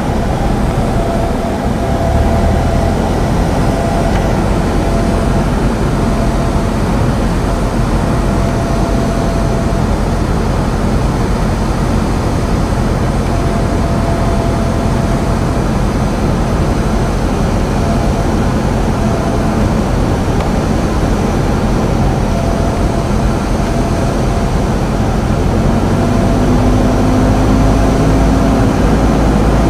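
Cessna 172's piston engine and propeller droning steadily, heard from inside the cabin on final approach to land. A tone in the drone rises slightly in pitch near the end.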